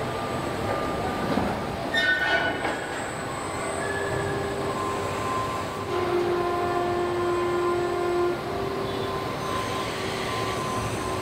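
Car-body assembly line running: steady machinery noise with whines from industrial robot motors as the arms move, holding different pitches for a second or two at a time. A brief clatter comes about two seconds in.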